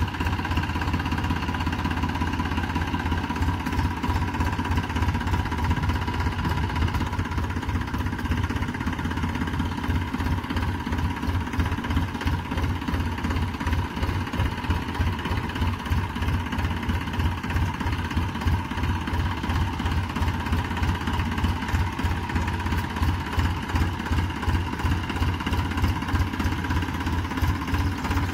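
Massey Ferguson tractor's diesel engine running steadily at low revs, with a fast, even pulse.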